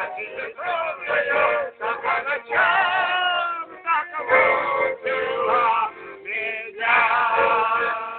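Folk song sung by a group led by a man's voice, to the accompaniment of a garmon (Russian button accordion) holding steady chords.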